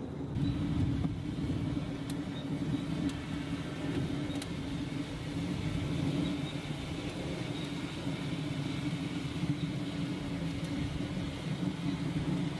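A steady low rumble with a few faint, sharp ticks, starting suddenly just after the opening.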